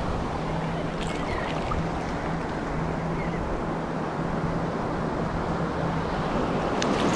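Shallow surf washing steadily with wind on the microphone, with a faint low hum underneath and a few faint ticks about a second in and again near the end.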